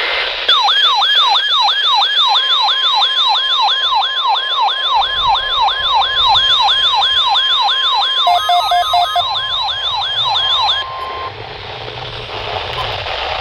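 A weather radio receiver's alert siren, a warbling sweep repeating about two and a half times a second, set off by the NOAA Weather Radio warning alarm test. A steady warning alarm tone from the broadcast joins under it, and both stop about eleven seconds in, leaving radio static.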